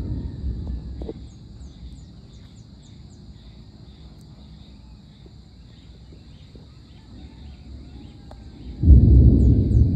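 Distant thunder rumbling and fading out over the first second or so, then a quieter stretch with a steady high hiss and small bird chirps. About nine seconds in, a sudden loud peal of thunder breaks in and rumbles on.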